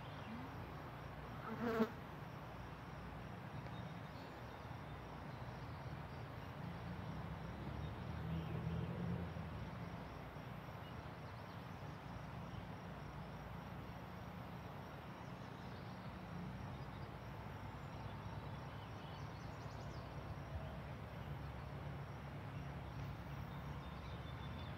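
Steady low buzzing of flying insects, swelling a little about eight seconds in, with one brief pitched squeak about two seconds in.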